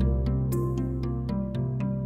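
Instrumental background music: regular drum hits over sustained chords and a steady bass line.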